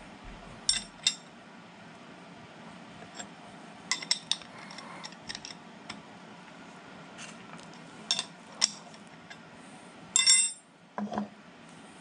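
Steel wrenches clinking as they are handled: scattered sharp clicks and clanks, with a loud ringing clink about ten seconds in as a combination wrench is set down on the cast-iron mill table.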